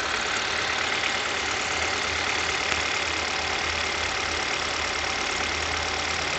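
Car engine idling with the alternator drive belt squealing steadily.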